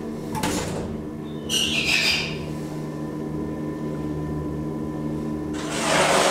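1974 DEVE hydraulic elevator travelling, a steady low hum from its drive, with a short high-pitched noise about one and a half seconds in. Near the end a loud rushing noise sets in as the car reaches the landing.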